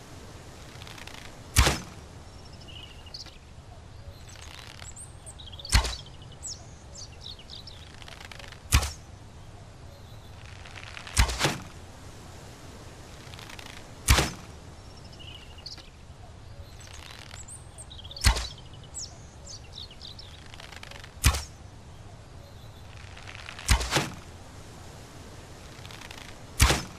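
Bow and arrow shots, one after another: nine sharp thwacks about every three seconds, several with a short swish just before them.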